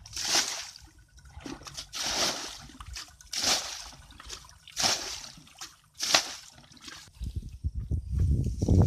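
Muddy water being bailed out of a small pool in a flooded rice field and splashed aside: five splashes about a second and a half apart. Near the end a louder low rumble builds up.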